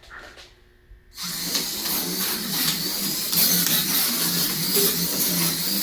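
Slot car running round the track: its small electric motor whines and the car rattles along the slot, starting about a second in, the sound breaking and picking up again as the throttle is eased and opened.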